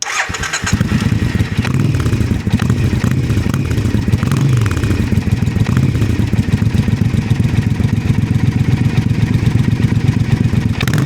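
Triumph Speedmaster twin-cylinder engine running through newly fitted Remus slip-on silencers. It catches just at the start and settles into a deep, steady idle, and its pitch swells gently a couple of times.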